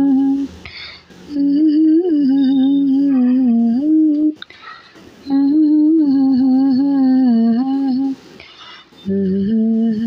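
A woman humming a slow tune in long held phrases, about three of them, with short breaths between.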